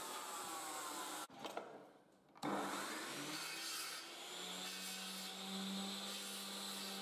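Mitre saw running, with a short break a little over a second in, after which it comes back suddenly and runs steadily as the blade is brought down to cut a kitchen lighting pelmet.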